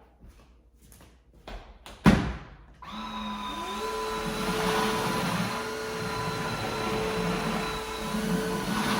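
A sharp click about two seconds in, then the Tineco iFloor 3 Breeze cordless wet-dry vacuum mop starts up: its motor whine rises briefly and then runs steadily over a rushing suction noise.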